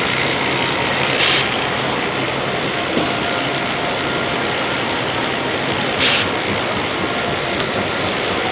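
Web inspection and sheeting machine running at high speed, a steady dense mechanical clatter. Two short hisses come about a second in and about six seconds in.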